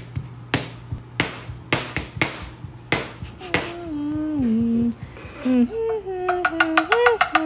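Kitchen knife chopping on a plastic cutting board, a sharp knock roughly every half second to second, then a person humming a gliding tune from about halfway through.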